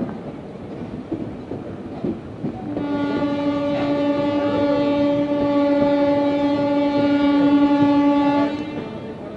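Train horn sounding one long steady blast of about six seconds, starting about three seconds in, over the rumble and clatter of train wheels on the rails.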